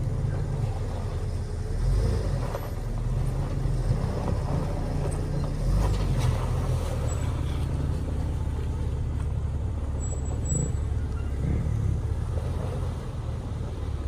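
Jeep Wrangler engine running steadily at low revs while the Jeep crawls slowly over a muddy rock ledge.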